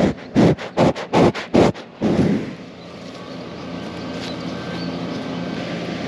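A cow sniffing and blowing right at the microphone, quick breaths about four a second, which stop about two seconds in. After that a steady low engine hum, like a tractor idling, remains, with a few faint bird chirps.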